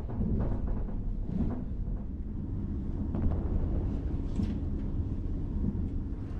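Steady low rumble of a moving train, heard from inside the carriage, with a few faint knocks now and then.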